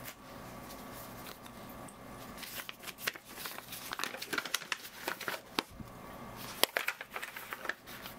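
Folded paper instruction leaflet being unfolded: crisp, irregular crackling and rustling of paper that starts about two and a half seconds in and stops just before the end, over a faint steady hum.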